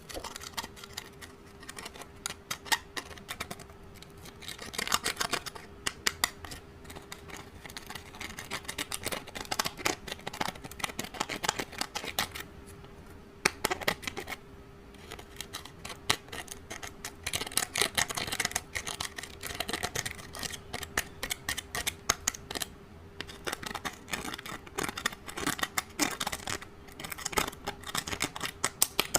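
Slime being squished and mixed by hand, with dense runs of rapid clicks and crackles and a few brief pauses.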